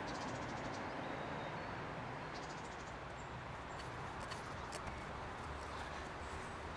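Quiet outdoor ambience: a steady low background hiss with a few faint light ticks and rustles.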